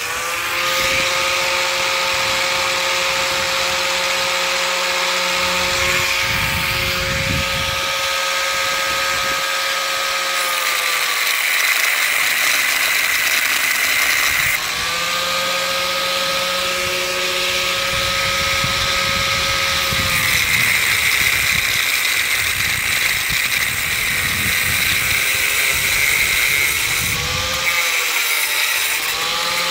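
Angle grinder running and grinding into the metal post of an old basketball hoop set in concrete: a steady high motor whine over a harsh grinding hiss. The motor's pitch sags and drops out twice as the disc is pressed into the metal, climbs back in between, and dips in a few quick pulses near the end.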